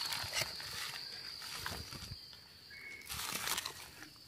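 Fingers scraping and rustling in damp gritty soil and leaf litter while digging out hed pho puffball mushrooms, with a louder burst of scraping near the end. A steady high-pitched whine sits behind it, fading for about a second in the middle.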